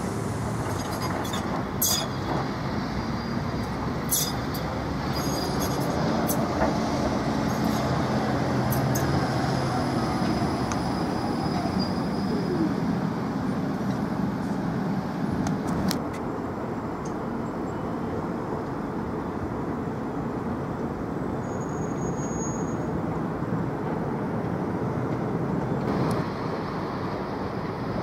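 Škoda 30T ForCity Plus low-floor tram running past on its rails: a dense rolling rumble with sharp clicks about two and four seconds in. It is loudest in the middle as the tram goes by, then settles to a lower, steadier rumble.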